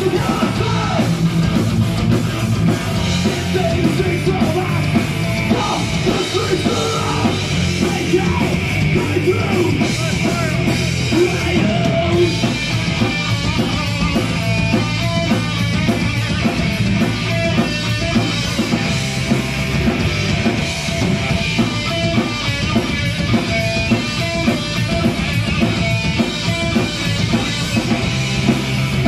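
A heavy metal band playing live: electric guitars, bass guitar and drum kit, with a singer's vocals at times.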